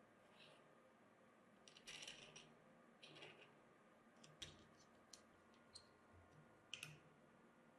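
Faint, scattered small clicks and brief rustles, spread unevenly about a second apart, with nothing steady beneath them.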